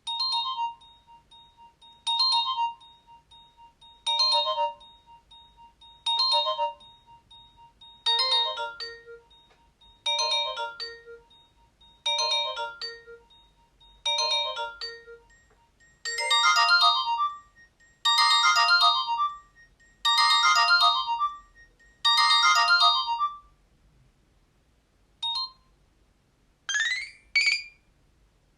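Nokia 225 built-in ringtone playing through the phone's speaker: a short electronic melodic phrase repeated every two seconds, becoming fuller and louder about halfway through and stopping a few seconds before the end. Then a single short beep and two quick rising sweeps of another tone.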